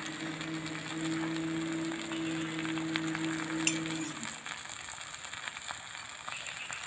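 Fine crackling and sizzling of banana-leaf-wrapped fish frying on an iron dosa pan over a wood fire. A steady low hum runs under it and stops about four seconds in.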